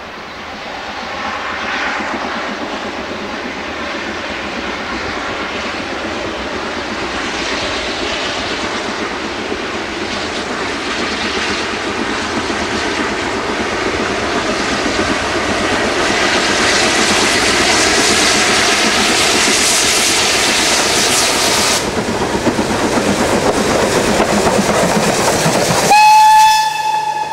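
BR Standard Class 4MT 2-6-4 tank engine hauling a loose-coupled goods train: steam exhaust and wagons rattling over the rail joints, growing louder as it approaches. Near the end comes a steady steam whistle blast, the loudest sound.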